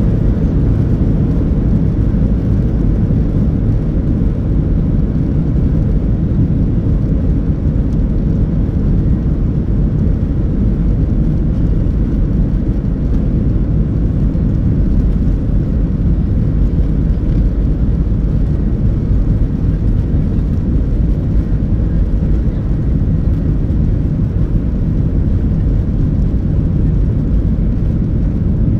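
Ryanair Boeing 737's jet engines and rolling rumble heard from inside the cabin while the airliner moves along the runway; a steady, loud, deep drone with no clear change.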